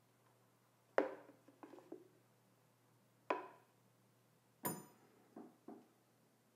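A spoon knocking and scraping against a blender jug and a drinking glass as thick chocolate mousse is scooped from the jug into the glass. The knocks are quiet and separate, about seven in all, and the loudest, about four and a half seconds in, has a brief ringing clink.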